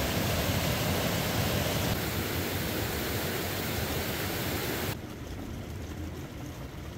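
Fast-flowing creek rushing over rocks, a loud steady hiss of water. About five seconds in it cuts to quieter running water.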